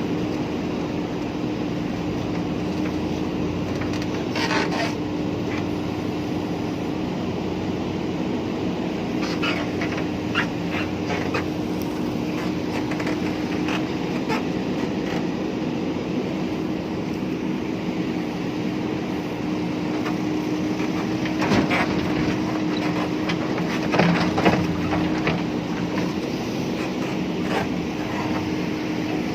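JCB 3DX backhoe loader's diesel engine running at a steady pitch, with scattered short clanks and rattles, the loudest a little over two-thirds of the way in.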